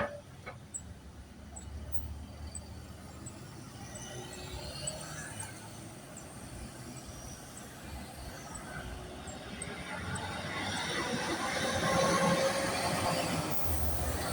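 Street traffic, with a large vehicle passing close by: the noise swells through the second half, is loudest a couple of seconds before the end, and carries a faint steady whine or squeal.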